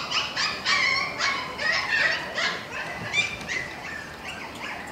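Dogs yipping and whimpering in a rapid run of short, high-pitched cries, a few a second.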